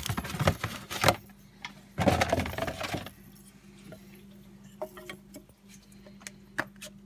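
Light metallic clicks and clinks of engine parts and tools being handled, with a short scraping rustle about two seconds in, then a few faint ticks.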